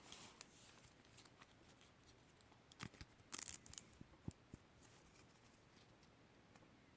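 Mostly near silence, with a few faint clicks and rustles of trading cards and their foil wrapper being handled, clustered about three to four and a half seconds in.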